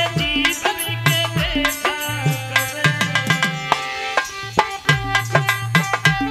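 Instrumental music: tabla playing a steady rhythm, its deep strokes sliding down in pitch, under a sustained melody line.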